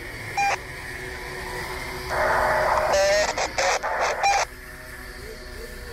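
Handheld two-way radio squawking: a short beep, then about two seconds in a loud burst of static carrying garbled voice, closed by the same short beep. A vehicle engine runs low and steady underneath.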